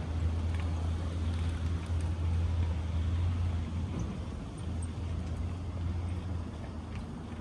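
Steady low rumble of a road vehicle running, with traffic noise; it eases slightly about four seconds in.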